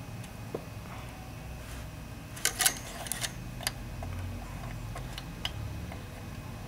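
A few short plastic clicks and taps, clustered about two and a half seconds in with single ones after, as a cable connector is handled and plugged onto a PC motherboard. A steady low hum sits underneath.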